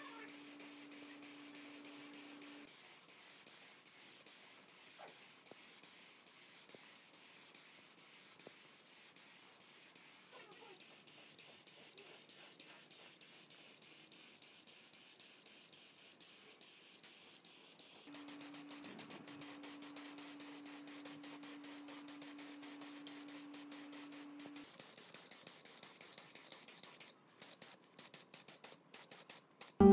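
Compressed-air paint spray gun hissing steadily as it sprays paint onto a steel tank. A low steady hum comes and goes underneath.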